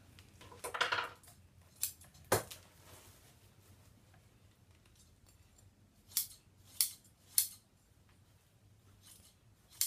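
Scissors cutting bonded polyester batting: three sharp snips about half a second apart past the middle, after a soft rustle near the start and a single click.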